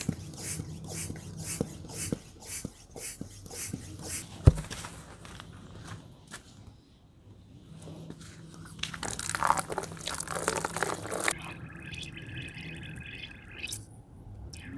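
Bicycle inner tube being inflated with a hand floor pump, quick regular strokes about two to three a second; later water sloshing and dripping as the tube is pressed through a tub of water to find the puncture. A single sharp knock about four seconds in is the loudest sound.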